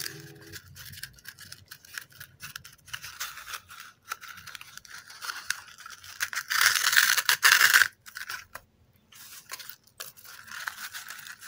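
Coconut-fibre cord being pulled through holes in cardboard toilet-paper tubes: dry scratching and rustling of fibre on cardboard, with small handling clicks. A louder rasp lasts about a second past the middle.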